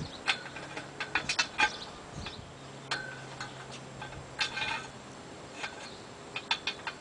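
Steel pins and carriage bolts clinking and tapping against a steel jack post as they are pushed through its aligned holes: a scatter of sharp metallic clicks, some in quick runs of three or four.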